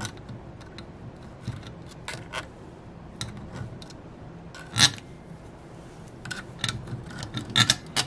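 Small brass screws clicking against the metal-rimmed Dacron filter and the aluminium valve body of a 727/904 automatic transmission as they are set and threaded in by hand: scattered light metallic clicks, the loudest about five seconds in and several close together near the end.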